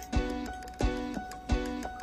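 Background music with a steady beat: a low drum-like strike with a chord roughly every two-thirds of a second.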